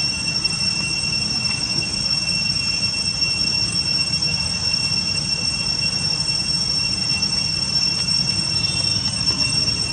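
A steady high-pitched drone made of two held tones, unchanging throughout, over a constant low rumble.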